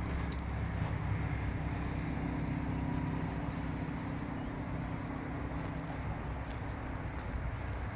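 Tatra T3R.EV tram pair running slowly toward the listener, a steady low electrical hum from its drive over a rumble of wheels on rail. The hum thins out about six seconds in as the tram slows.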